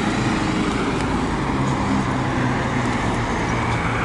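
Road traffic noise with a motor vehicle's engine running steadily close by, a low hum that holds level under a broad wash of traffic sound.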